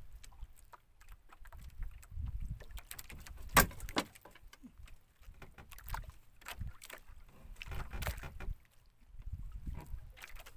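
Water lapping and sloshing against a small fishing boat's hull in uneven swells, with scattered light knocks and clicks from handling in the boat and one sharp knock about three and a half seconds in.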